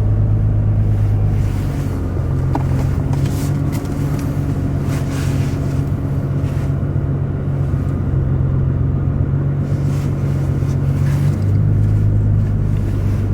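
Car engine and road noise heard from inside the cabin while driving: a steady low drone whose pitch steps up about a second and a half in and drops back near the end.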